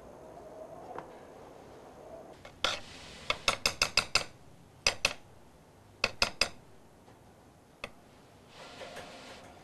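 Thin metal spatula clicking and tapping against the plate as wet sword-hardening clay is worked on it. There is a quick run of about six clicks, then clicks in pairs and threes, and a soft scrape near the end.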